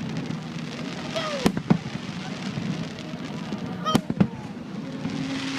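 Fireworks bursting overhead: two pairs of sharp bangs, the first pair about a second and a half in and the second about four seconds in, over a steady murmur of a crowd with a few calls.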